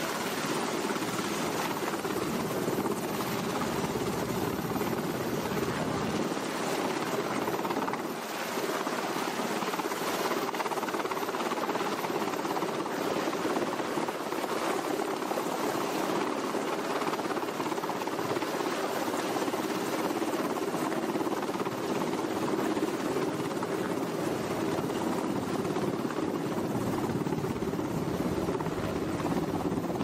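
Sikorsky H-60-series helicopter hovering low overhead, with a steady, even rotor and turbine noise.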